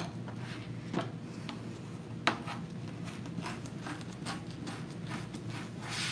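Deco mesh being bunched and scrunched by hand, a soft rustling with two sharp crinkles about one and two seconds in and a denser rustle near the end.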